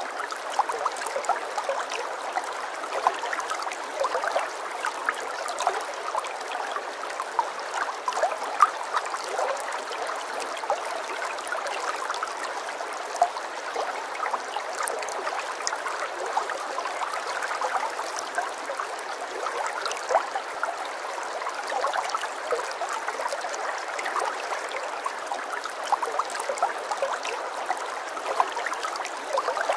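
Running water trickling and gurgling steadily in a small stream, a constant wash dotted with many small bubbling pops.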